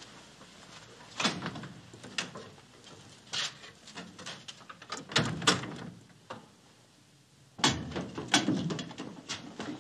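Scattered sharp wooden knocks and clunks, then after a short lull a sudden cluster of louder thumps of feet landing on wooden steps and floorboards.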